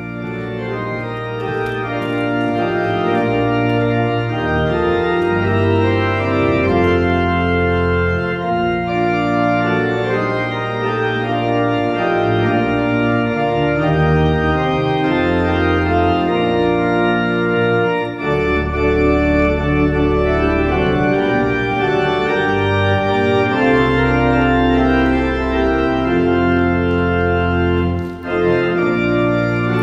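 Organ playing the closing postlude after the benediction: slow sustained chords over long held bass notes.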